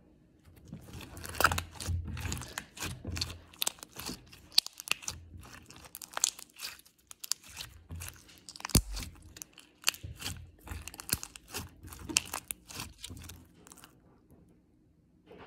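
Clear slime with heart confetti being squished and stretched by hand close to the microphone for ASMR: a dense, irregular run of small pops, clicks and crackles, with one sharper knock just past halfway, dying away shortly before the end.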